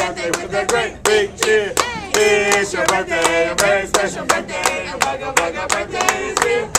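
A group of people singing a birthday song together, clapping along in a steady beat of about three to four claps a second.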